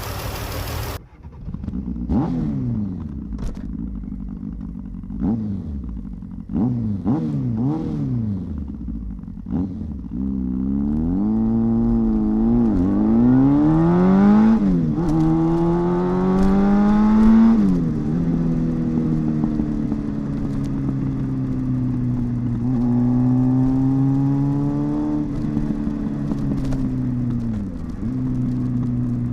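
2014 Jeep Cherokee's V6 starting, then blipped up and down several times in quick succession, held at higher revs for several seconds and let settle to a steady idle with one more small rise. It is being run after new spark plugs to check whether the cylinder 1 misfire (P0301) is cured.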